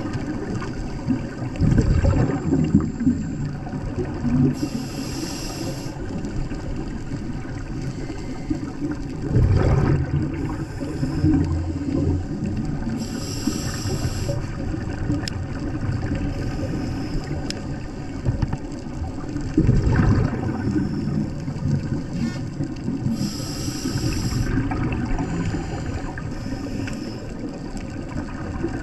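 Underwater sound picked up by a camera's microphone: a steady low rumble of water, broken by a few short hissing bursts and a few louder bubbling surges.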